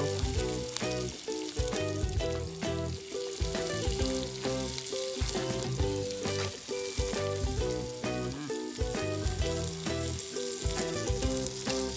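Background music with a steady beat over the sizzle of shallots, garlic, ginger and a lime leaf frying in melted butter in a camping pan on a portable gas stove.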